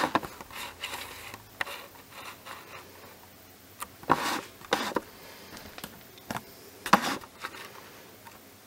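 Scattered small clicks and short scrapes of an eMMC flash chip being handled and seated by hand in a plastic BGA socket adapter on a chip programmer, loudest about four and seven seconds in.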